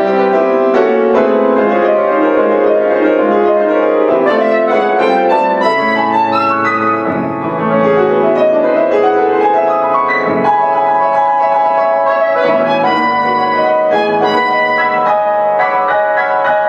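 Soprano saxophone and grand piano playing together in a contemporary classical duo: held saxophone lines over a busy piano part with many quick notes.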